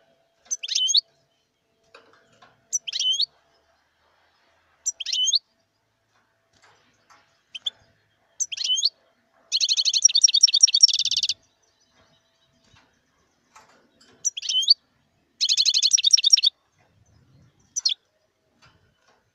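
European goldfinch calling: a sharp high note repeated every two seconds or so, broken twice by a rapid twittering burst of about a second or more.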